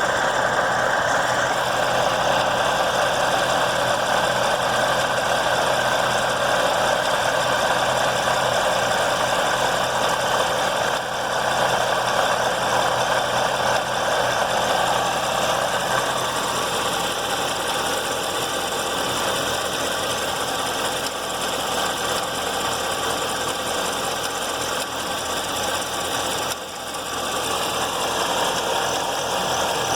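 C7 Corvette Z06's supercharged 6.2-litre LT4 V8 running, with an unusual tapping, knocking noise that sounds like a loose marble inside the motor.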